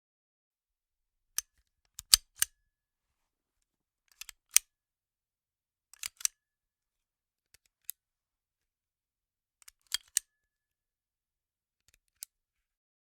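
Sharp mechanical clicks of a gun's action being worked, in short groups of two or three every couple of seconds, with no shot fired.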